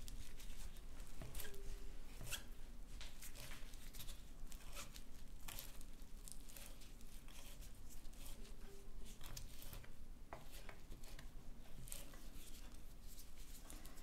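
Kitchen knife chopping fresh mint leaves on a wooden cutting board: a run of irregular, crisp cuts and light knocks of the blade on the wood.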